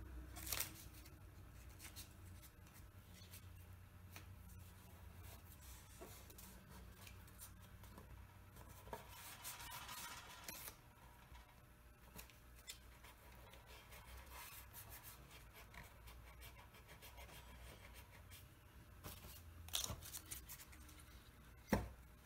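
Faint handling of blue painter's tape and a cardboard caul over a freshly glued veneer patch: tape rustling and rubbing, with a longer scratchy stretch about ten seconds in. A few sharp taps come through, the loudest near the end.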